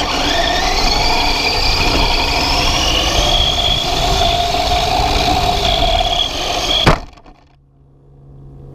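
Remote-control car running, heard from a camera mounted on the car: a motor whine that rises in pitch as it speeds up, over a rough rumble from the wheels on the ground. About seven seconds in there is a sharp knock and the sound cuts off, leaving a faint steady low hum.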